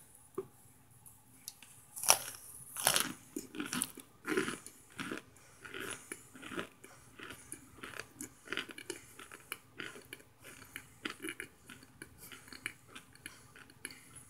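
A person biting and chewing a hard, crunchy chunk of microwaved cornstarch: a few loud crunches about two to four seconds in, then a long run of smaller crunches, several a second.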